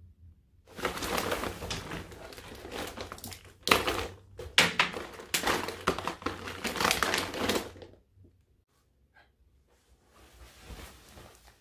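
Plastic packaging crinkling and rustling as it is handled, in repeated bursts for about seven seconds, then a few faint rustles near the end.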